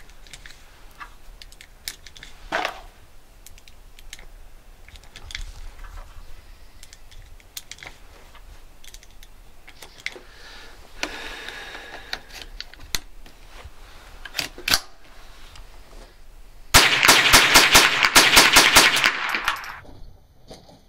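A rapid burst of gunfire, several shots a second for about three seconds, after a stretch of scattered light clicks and knocks.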